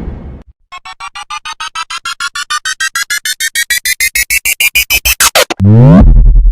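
Synthesized electronic sound effect: a rapid train of beeps, about eight a second, climbing steadily in pitch and getting louder for about five seconds. It ends in a fast falling sweep that drops into a low buzz. A boom dies away just before the beeps begin.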